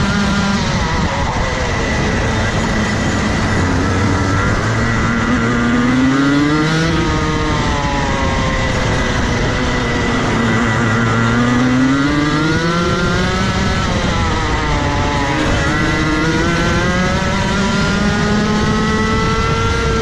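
Rotax Max Evo 125cc two-stroke kart engine at race pace, its pitch climbing in long sweeps on the straights and dropping twice as the kart slows for corners, about ten seconds in and again near fifteen seconds.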